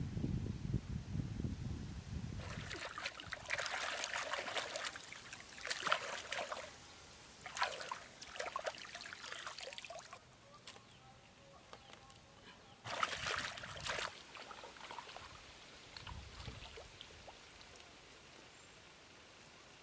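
Hand splashing and scooping water in a shallow muddy pool, in irregular bursts of splashing and dribbling that fade towards the end. A low rumble fills the first couple of seconds.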